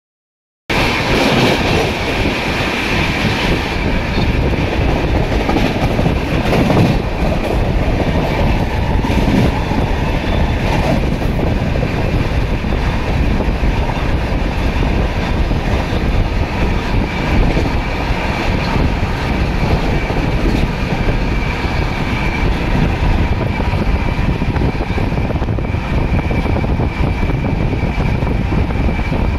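Running noise of an Indian Railways train heard from inside the coach at an open barred window: a steady loud rumble and clatter of wheels on rail, with a faint steady high whine. It is louder and harsher for the first few seconds while a line of open freight wagons passes close alongside.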